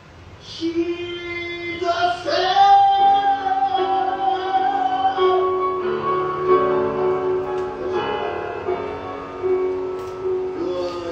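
Singing from a stage musical's recording: a voice holding long notes over a piano accompaniment.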